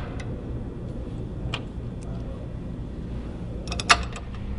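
Metal parts of an exhaust hanging bracket being handled and fitted by hand: a light click about a second and a half in, then a quick cluster of metal clicks and knocks near the end, over a low steady hum.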